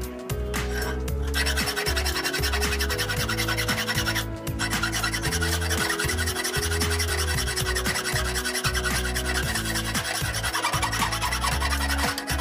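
Hand file rasping across the edge of a steel hatchet head, starting about a second in with a short break about four seconds in. Background music with a steady beat plays under it.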